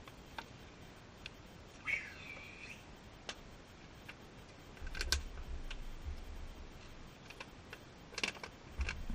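Quiet outdoor background with scattered light clicks and a short bird chirp about two seconds in; a low rumble comes in about five seconds in.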